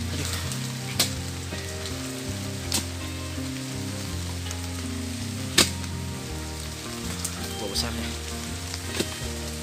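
Steady rain hiss with background music of low held notes, cut by a few sharp knocks, the loudest a little past halfway.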